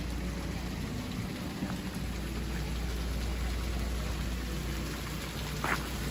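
Steady patter of water spattering onto a hard surface, with one short, higher-pitched sound near the end.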